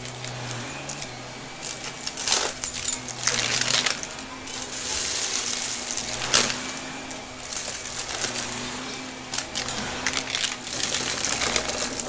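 Shark upright vacuum cleaner running over carpet with a steady motor hum and a high rushing of air, broken by many sharp clicks and rattles of small hard debris being sucked up.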